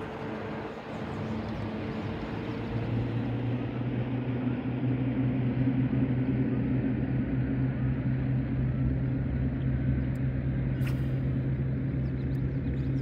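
Boat motor running steadily, a deep hum that grows louder about three seconds in and then holds.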